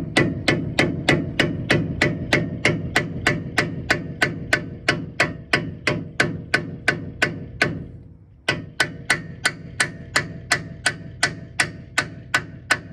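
Hammer tapping a flathead screwdriver in a steady rhythm of about three strikes a second, each strike ringing briefly, to work loose the stiff cap over the end axle nut on a Toyota T100's front hub. The tapping pauses briefly about two thirds of the way through, then carries on.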